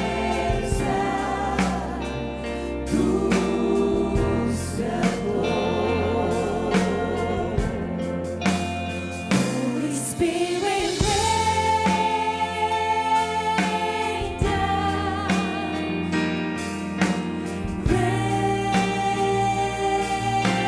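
Live church worship band and vocal team singing a slow worship song: several voices holding long notes with wavering vibrato over keyboard and guitar accompaniment.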